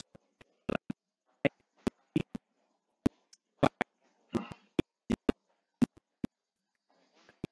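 Irregular sharp clicks and knocks, about twenty of them, with a short noisy rustle a little past the middle and faint murmuring between, heard through a video-call audio feed.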